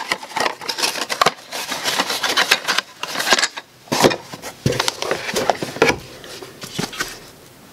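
Handling noise of a cardboard box and a polymer rifle stock: irregular rustling, scraping and light knocks and clicks as the stock is lifted out of the box. The sounds thin out near the end.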